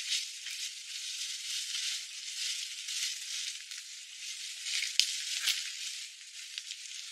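Scraping and rustling of a long-handled digging tool working through leaf litter and soil, in uneven repeated strokes that sound thin and hissy. A couple of sharp clicks come about five seconds in.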